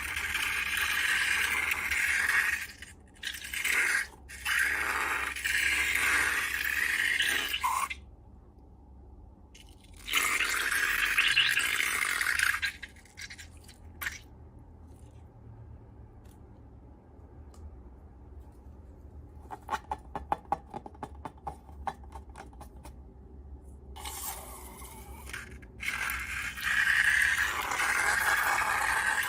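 Slime being scraped and worked by hand, in several stretches of scraping noise with short pauses between them. About two-thirds of the way through there is a quick run of small sticky clicks.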